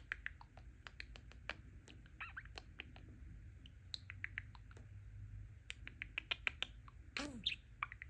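Budgerigar chattering quietly: many small clicks with short high chirps in between, and a louder warbled note about seven seconds in.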